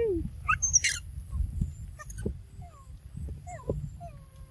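Macaques giving short squeaky calls, each falling in pitch, about a dozen scattered through, with a brief harsh rasp about a second in over a low rumble.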